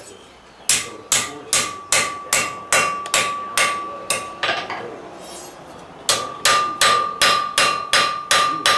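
Blacksmith's hand hammer striking hot iron on an anvil: two runs of quick blows, about two and a half a second, with a pause of about a second and a half between them. A clear ringing tone from the anvil carries through each run.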